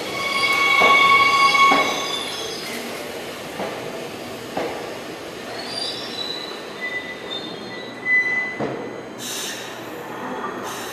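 Seoul Subway Line 9 electric train rolling slowly along the platform, its wheels squealing loudly in the first two seconds. After that come fainter squeals, a few sharp wheel knocks, and a short hiss near the end.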